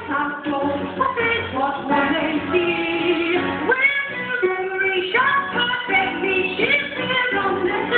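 Young female voices singing a stage-musical song over accompanying music.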